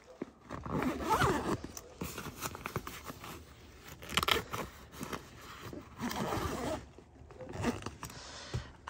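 Zipper on a fabric seat-back storage pouch being pulled closed in several rasping strokes, with fabric handling between them.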